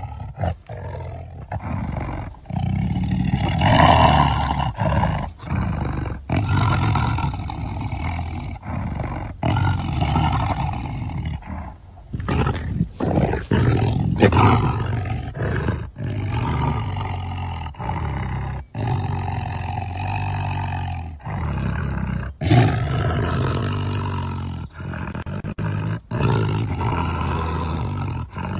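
Tiger roaring in a long series of rough calls with brief breaks between them; one of the loudest comes about four seconds in.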